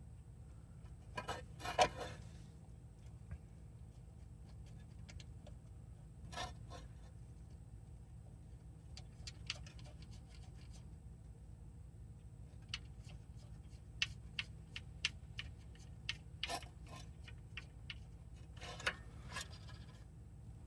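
Scattered clinks, clicks and short scrapes of metal hand tools and hardware being handled during work on the car's starter, with a steady low hum underneath.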